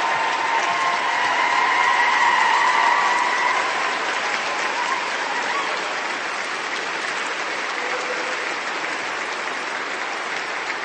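Crowd applause: many people clapping in a dense, steady wash, with a held cheering tone over it in the first few seconds. It is loudest about two to three seconds in, then eases slightly.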